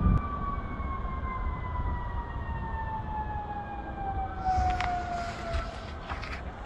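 A siren sounding one steady tone that slides slowly down in pitch, as if winding down, over a low rumble. A few sharp clicks come near the end.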